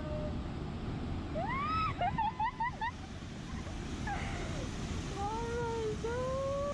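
Steady rush of a waterfall pouring into its pool, with people's voices calling out over it twice, the first time as a quick run of short notes.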